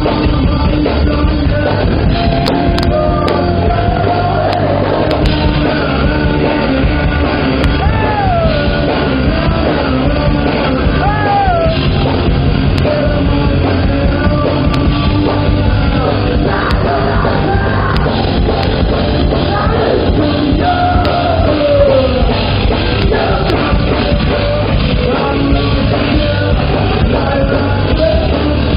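A rock band playing loud and steady, live: electric guitars and drums, with a man singing.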